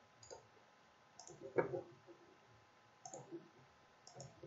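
A few faint computer mouse clicks, spaced about a second apart, the loudest about a second and a half in.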